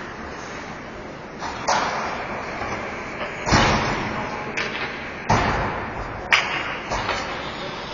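Ice hockey game in play: a string of sharp knocks and thumps from sticks, puck and the boards over steady rink noise, with two heavier thumps in the middle and a sharp crack later on.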